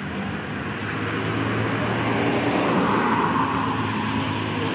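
Road traffic: a car drives past, its engine and tyre noise swelling to a peak partway through, over a steady low engine hum.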